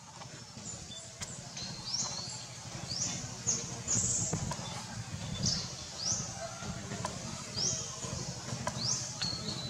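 A bird repeating a short high chirp that sweeps upward, roughly once a second, over a steady low rumble and a few faint clicks.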